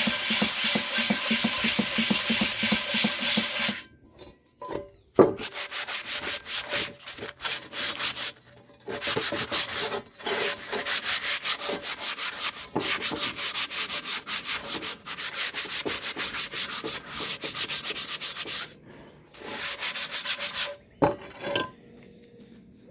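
Rust being scrubbed off an old cast-iron pot by hand in fast back-and-forth strokes, stopping briefly several times. There is a single sharp knock about five seconds in.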